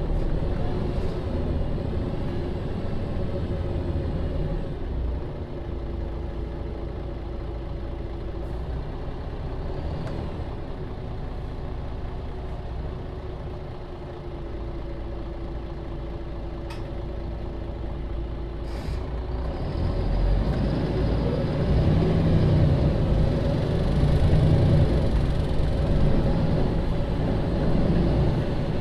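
Diesel engine of a MAN Lion's City (NL 283) city bus heard on board, running steadily and fairly quietly for a while. Near two-thirds of the way through there is a short hiss of air, and then the engine gets louder and heavier as the bus accelerates under load.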